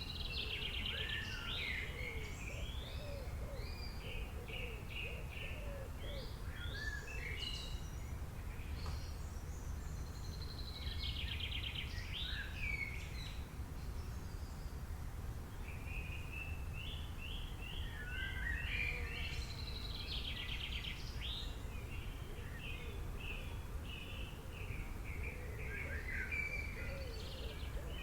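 Several songbirds singing at once in a forest, with overlapping chirps and whistled phrases. A fast, buzzy trill stands out three times: near the start, about a third of the way in, and around two-thirds. A steady low background noise runs underneath.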